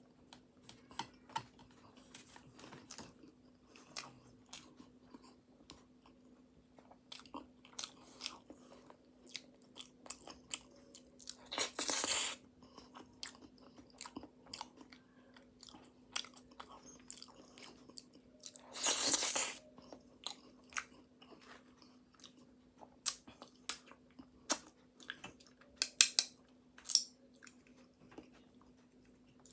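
Close-up chewing and crunching of pastry, with many small crackles and mouth clicks, and twice a louder burst of under a second. A faint steady hum runs underneath.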